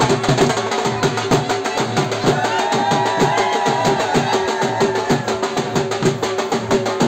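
Loud drum-led dance music: fast, steady drumbeats with a sustained melody line held above them.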